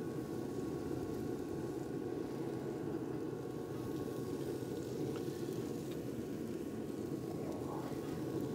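Steady low rushing hum of a Traeger pellet grill running with its lid open, its fan and fire pot going, with a faint light tick of a utensil about five seconds in.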